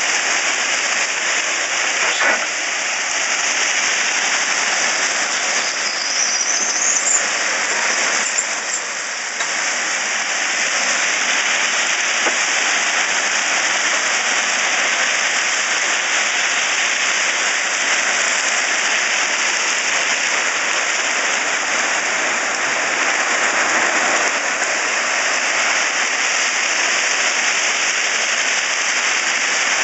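Crushed-rock railroad ballast pouring from a hopper car and being pushed aside by a steel ballast plow blade, a steady rushing rattle of stones. A brief rising squeal about six seconds in.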